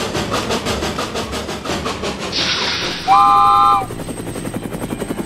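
Cartoon vehicle sound effects: a fast, even chopping rhythm like a helicopter rotor runs throughout. About two seconds in a hiss starts, and about three seconds in a loud chord-like train horn blasts for under a second.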